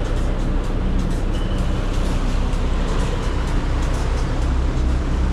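Motor yacht cruising under way: a steady low engine rumble under a broad rush of wind and water noise.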